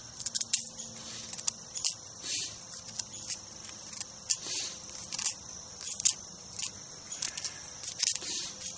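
A knife cutting fresh corn kernels off the cob in quick downward strokes, each a short scraping rasp, with the kernels dropping into a cast-iron skillet of stew. The strokes come irregularly, about one or two a second, over a steady high chirring of crickets.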